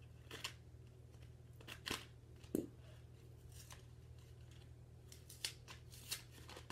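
A small plastic mystery-accessory pouch being opened, likely cut with scissors: a few faint, scattered snips and crinkles.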